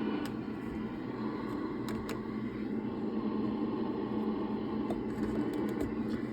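Cooling fan running steadily with a low hum, and a few faint ticks about a second and two seconds in.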